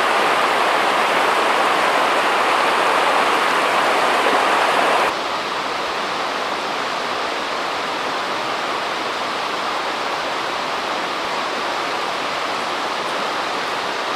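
Steady rushing of running water, such as a stream. It drops suddenly to a quieter level about five seconds in.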